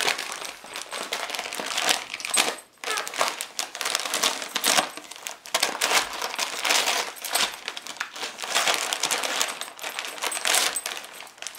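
Shiny gift-wrap paper crinkling and crackling in irregular bursts as a Siberian husky bites and paws at it, tugging to tear the present open; the paper is tough and hard to rip.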